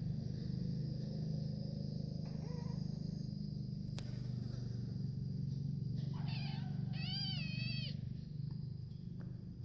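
Kittens meowing while sparring: a short call about two seconds in, another about six seconds in, then one long wavering meow. A steady low hum runs underneath.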